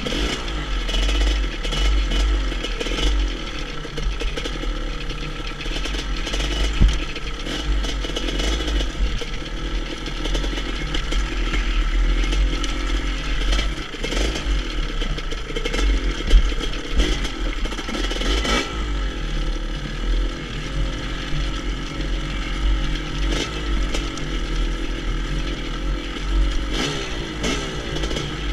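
GasGas EC 250 two-stroke enduro motorcycle engine on the move, its revs rising and falling as it rides over rough stony ground. The bike's chassis rattles and clatters, with a couple of sharp knocks from bumps, and wind rumbles on the microphone.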